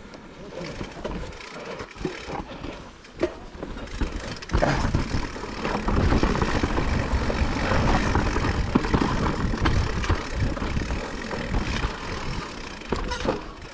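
Blizzard wind gusting and buffeting the microphone in an uneven rumble, much stronger from about four and a half seconds in.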